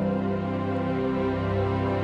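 Background music, a slow new-age style piece with sustained notes.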